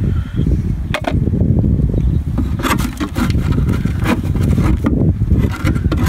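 Wooden beehive parts scraped and knocked in short strokes while the emptied hive is cleaned out, over a steady low rumble.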